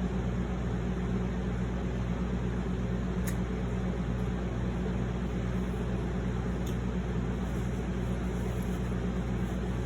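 Steady low hum with an even hiss of background room noise, with two faint clicks about three and seven seconds in.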